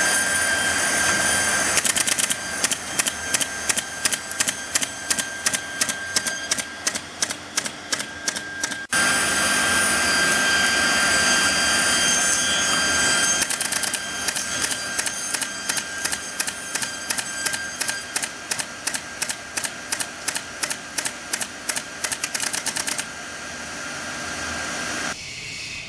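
Automatic architrave (L door-line) grooving and nailing machine running with a steady whine. Its pneumatic nailing head fires nails into the wooden strip as it feeds through, in long runs of sharp shots, several a second.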